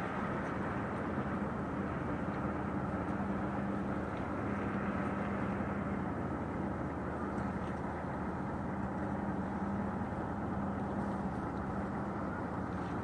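Small motorboat's engine running steadily as it crosses the bay: a constant hum over a wash of outdoor noise.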